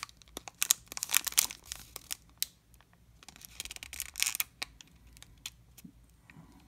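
Plastic trading-card pack wrapper crinkling and crackling as fingers bend and handle it, with a run of sharp crackles in the first second and a half and another rustle about four seconds in.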